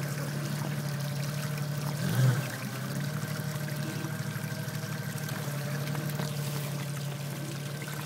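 Jeep engine running steadily at low revs as the vehicle crawls over rocks, with one brief louder surge about two seconds in.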